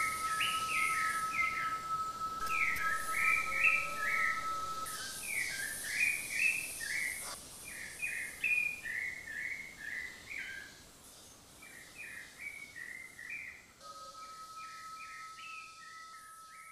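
A songbird singing a fast, unbroken run of short chirping notes, gradually fading out. A steady high tone sits under the song for the first five seconds or so and comes back near the end.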